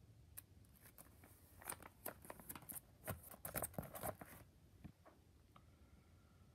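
Clear plastic binder page of trading cards being turned, with a faint run of crinkles and clicks lasting about four seconds, busiest near the end of the turn.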